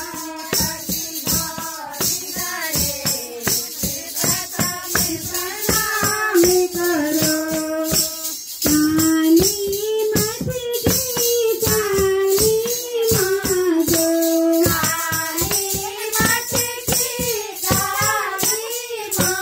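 Kirtan: devotional group singing of one melody line, carried by a steady beat of jingling hand percussion that keeps time throughout.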